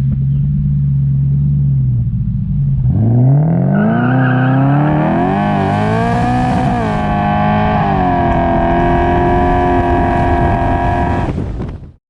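Car engine idling, then revving up about three seconds in and held at high revs with a brief waver, cut off abruptly near the end.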